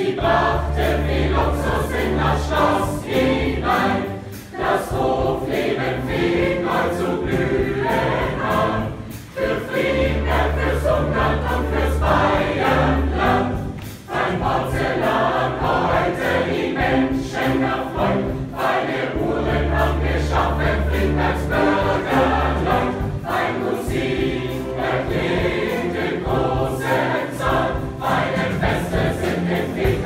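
Large mixed youth choir singing a song, with short breaks between phrases and low held notes underneath in three spells.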